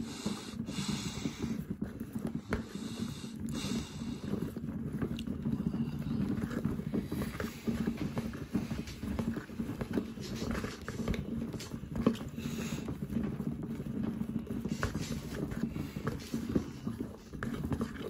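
Homemade toy washing machine tumbling a small towel in water: a steady low motor hum with water sloshing and irregular knocks from the turning plastic drum, one knock louder about two thirds of the way in.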